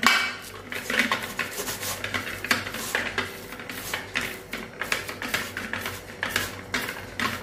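Small stainless steel cup pressed and rubbed against a steel mesh sieve, mashing hot cooked chana dal and jaggery through it. The sound is a run of scraping strokes and light metal clinks, roughly three a second.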